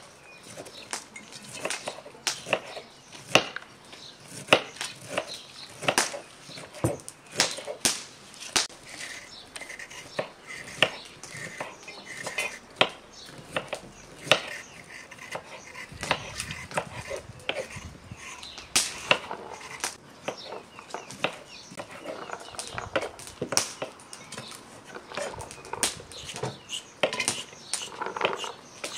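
Food-preparation handling sounds: irregular sharp taps and clicks as fresh dill and leaves are handled and packed into large glass pickling jars.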